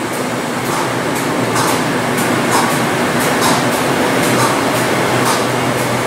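Steady machinery and fan drone of electroplating-shop equipment, with a constant low hum underneath and faint irregular clicks.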